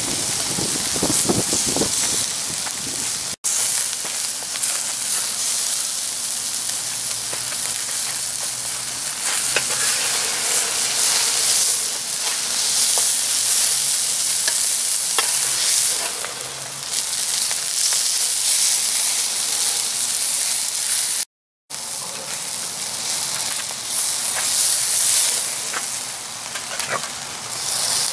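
Hamburger patties sizzling on a charcoal grill grate: a steady hiss with small crackles of fat. It breaks off twice for an instant.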